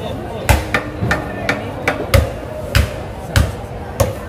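Heavy cleaver chopping into a yellowfin tuna head on a wooden chopping block: a run of sharp chops, each with a dull thud, a handful of heavy blows and lighter knocks in between.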